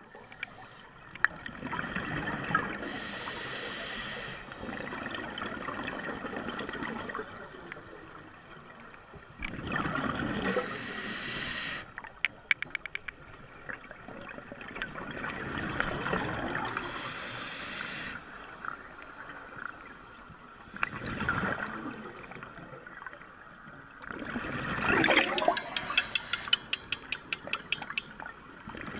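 Scuba regulator breathing heard underwater: a hissing inhale and a gurgling rush of exhaled bubbles, repeating every six or seven seconds. Short runs of fast clicking come in near the middle and toward the end.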